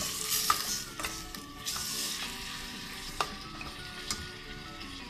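Marinated beef and onions sizzling in a stainless steel pot as a metal spoon stirs them, with a few sharp clinks of the spoon against the pot.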